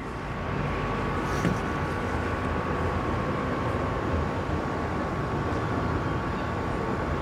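Jet aircraft passing: a steady roar that swells over the first second and then holds, with a faint steady whine above it.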